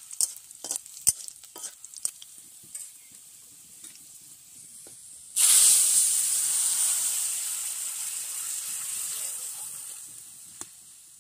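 A metal spatula scrapes and taps in an iron kadai of spices frying in oil. About five seconds in, boiled dal is poured into the hot oil and sets off a sudden loud sizzle that fades away over the next few seconds.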